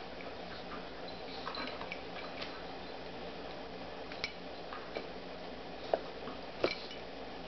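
Two dogs, an Australian shepherd puppy and a golden retriever, mouthing at each other in play, giving a few scattered light clicks, the loudest near the end, over a steady low room hum.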